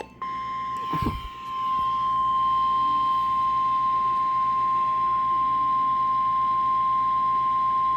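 NOAA Weather Radio warning alarm tone: one long, steady, unwavering tone of about 1050 Hz, the signal that a severe weather warning follows. A brief low thump sounds about a second in.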